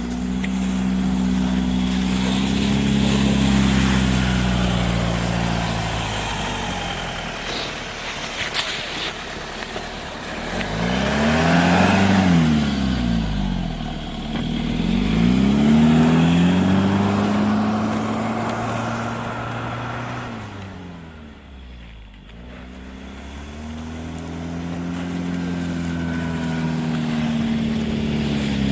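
Off-road vehicle engine working under load, its revs rising and falling several times, with a brief easing about three quarters of the way through.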